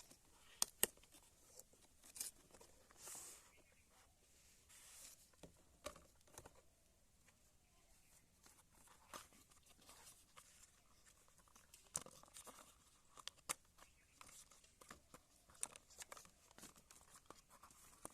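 Faint handling noises: scattered light clicks and brief rustles of plastic and paper packaging being handled.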